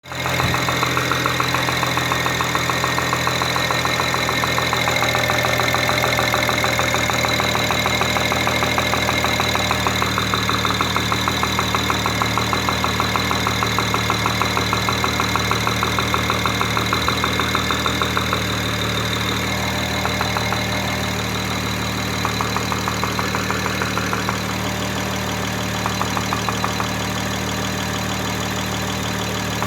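Engine idling with a rapid, even knock from one cylinder; the knock drops out for stretches after about eighteen seconds and briefly comes back twice. The knock stops when pressure is put on the cylinder it comes from.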